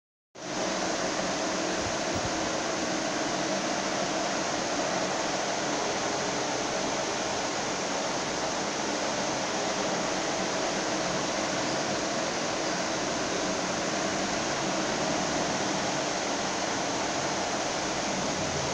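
Steady fan-like hiss with a faint low hum, starting just after the beginning and holding even throughout.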